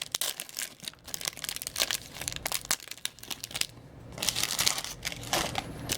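Foil wrapper of a hockey trading-card pack crinkling and tearing, with cards rustling and clicking as they are handled.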